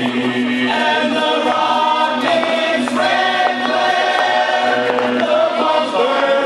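Music with choir-like singing in held chords, steady in level throughout.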